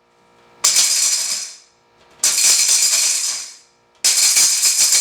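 Innomix Surya mixer grinder pulsed three times, each short burst of the motor spinning up and dying away, with hard dried turmeric pieces rattling and clattering inside the small steel jar. Pulsing breaks the hard pieces into finer bits before continuous grinding.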